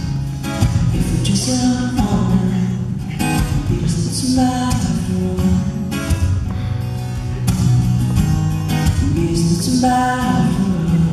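A man singing a song while strumming an acoustic guitar.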